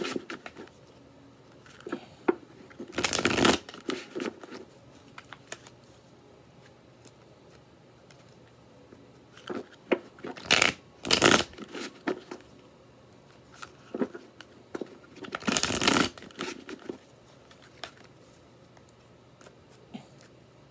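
A tarot deck being shuffled overhand by hand: the cards slide and slap together in a few short bursts, with light clicks of cards and pauses between.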